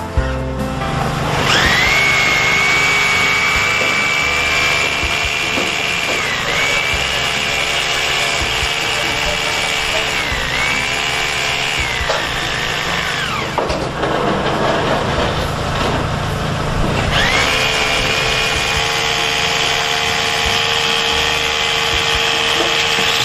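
Bosch GBH 2-26 DFR rotary hammer drill running with a steady, high motor whine. The whine starts about a second and a half in and dips in pitch briefly a few times. It stops for a few seconds after the middle, then starts again.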